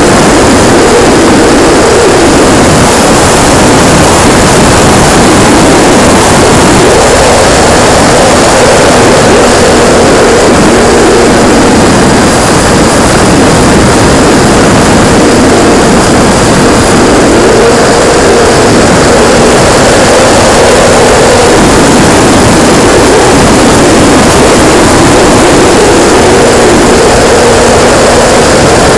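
Radio-controlled P-51D Mustang model's motor and propeller running in flight, heard loud from the onboard camera, with heavy airflow noise over the microphone. The pitch rises and falls as the throttle changes.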